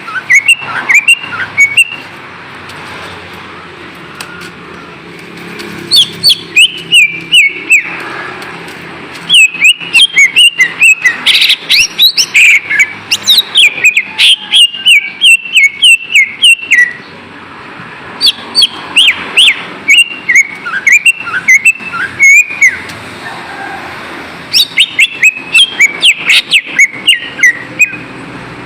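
Cucak ijo (green leafbird) singing: phrases of rapid, sharp whistled notes and chirps, each a few seconds long with short pauses between, over a steady background hiss.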